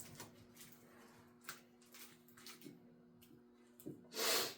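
Faint clicks and rustles of plastic split wire loom being handled and pushed onto a wiring harness, over a faint steady hum, with one louder brief hiss about four seconds in.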